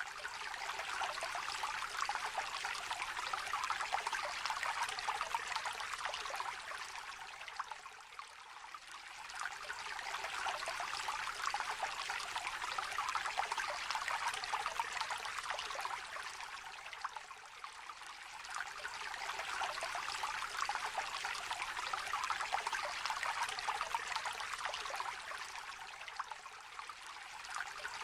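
Small stream trickling and babbling, a light, splashy water sound with no deep rumble. It swells and eases gently about every nine seconds.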